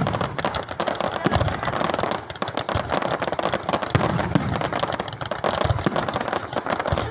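Fireworks going off: a dense, continuous crackle of many small bursts, with several deeper booms among them.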